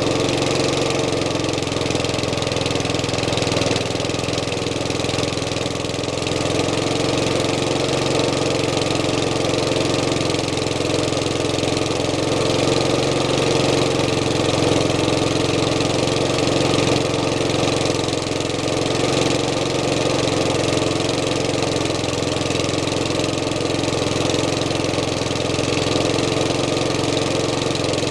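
Briggs & Stratton lawnmower's single-cylinder engine running steadily, burning off the oil that ran into its fuel tank and past the piston rings.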